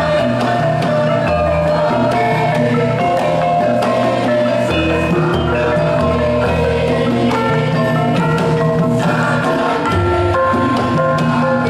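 Javanese gamelan ensemble playing: bronze bonang pot gongs and saron metallophones struck in running patterns, ringing over deep sustained gong tones.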